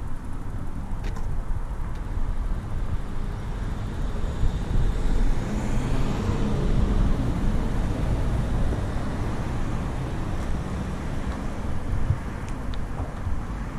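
Road traffic noise: a steady rumble that swells as a vehicle passes, loudest about six to seven seconds in, then eases off.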